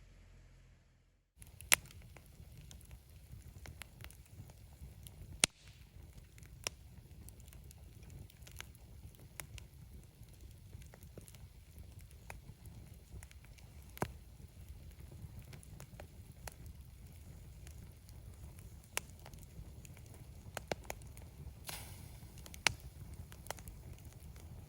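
Wood campfire crackling, with irregular sharp pops, a few of them loud, over a low steady rumble of the burning.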